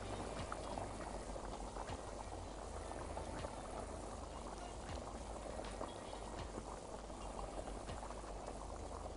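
Tomato curry sauce simmering in a pan on the stove, bubbling and popping steadily.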